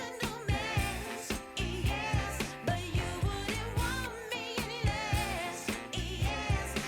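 Background pop song with a sung vocal over a steady drum beat.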